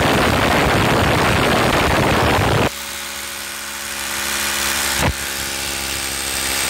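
Makita rotary hammer drilling into the mortar joint at the foot of a brick wall. It begins with loud, harsh hammer drilling. A few seconds in it drops to a quieter, steady motor whine, with a single click about five seconds in, and grows louder again near the end.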